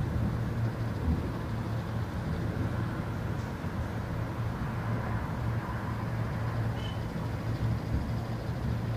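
Distant thunder rumbling low and steadily.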